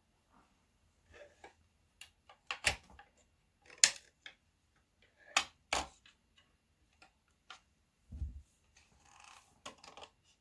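Sharp plastic clicks and snaps as a speaker grille cover is pried off its clips with a small flathead screwdriver, loudest in a cluster between about two and six seconds in, with a dull knock about eight seconds in.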